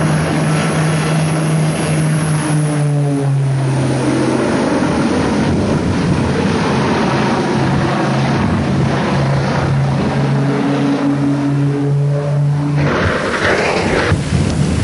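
Propeller engines of a twin-engine airplane droning steadily in low flight, the pitch dropping a step about four seconds in. About thirteen seconds in the engine drone stops and a rushing noise takes over as the plane crashes and burns.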